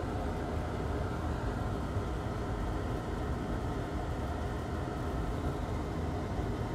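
Steady low background noise with no distinct events, like a fan or room noise at a workbench.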